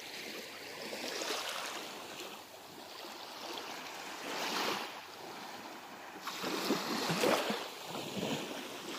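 Small waves lapping and washing in on a calm sandy shore, the hiss of water swelling and ebbing a few times.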